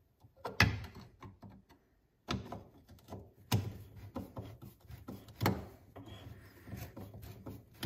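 Hand socket ratchet tightening a bolt on a snowblower's rubber auger paddle: irregular clicking and scraping strokes as the handle is worked back and forth, with a few louder strokes.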